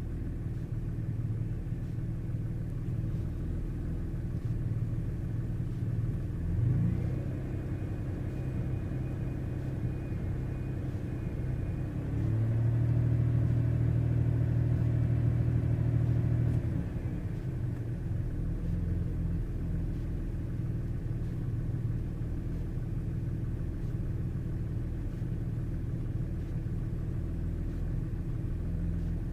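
Car engine idling, with a quick blip of the throttle about a quarter of the way in, then held at a higher speed for about five seconds before dropping back to idle. The engine is misfiring.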